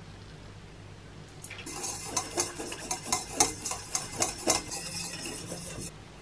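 A utensil stirring in a mixing bowl, scraping and clinking against its sides about three or four times a second. It starts about a second and a half in and stops near the end.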